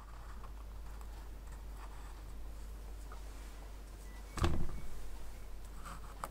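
Quiet workshop room tone with a steady low hum, broken by a single dull thump about four and a half seconds in and a light click near the end.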